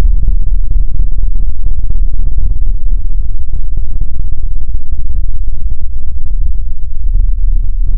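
A loud sound effect slowed down to a crawl, heard as a continuous deep rumbling noise that sits mostly in the bass.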